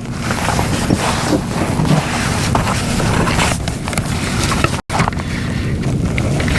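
Wind buffeting the microphone on a kayak, a loud steady rumble with scattered crackles and the wash of water. The sound cuts out for an instant about five seconds in.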